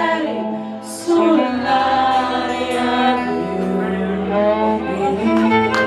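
Live folk band playing: a violin and an acoustic guitar under long held notes, with female voices singing along.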